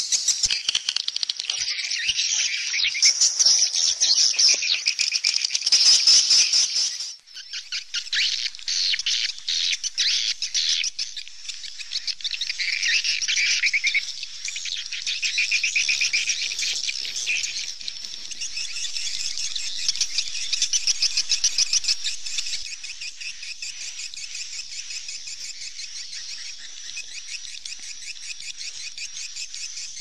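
Swallows twittering: a dense, fast stream of chirps and warbles, with a brief break about seven seconds in, softer and more even over the last third.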